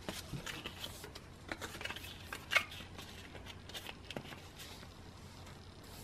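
Photocards being handled and pushed into tight plastic binder sleeves: a run of short plastic rustles and small clicks, with one sharper click about two and a half seconds in.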